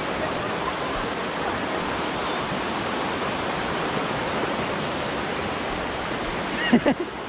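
River water rushing steadily. Near the end a brief voice cuts in.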